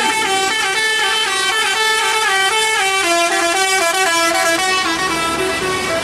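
Basuri-type telolet musical horn on a tour bus playing a tune of short stepped notes, several horn tones sounding together.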